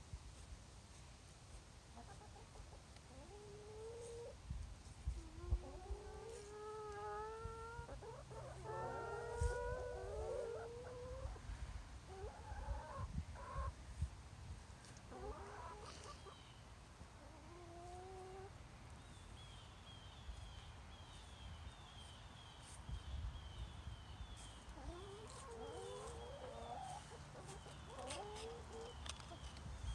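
Several hens clucking in short, pitched calls that come in clusters, busiest a few seconds in and again near the end. Through the second half a high, thin chirp repeats about twice a second behind them.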